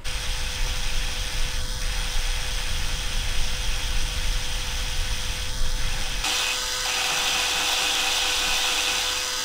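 Cordless DeWalt drill spinning a Yanmar 2GM diesel's valve against its seat to lap it in, a continuous grinding rasp over the drill motor's steady whine. About six seconds in the sound turns steadier and hissier.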